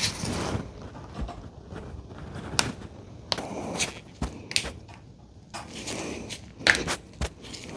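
Hand tools working at a Mazda Miata engine's rear main seal: irregular metal clicks and scrapes as a hook pick pries and pulls the old seal out, with several sharp clicks toward the middle and near the end.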